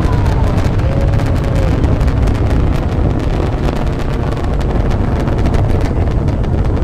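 Distant Falcon 9 launch: the nine Merlin 1D first-stage engines heard as a loud, steady low rumble with ragged crackling.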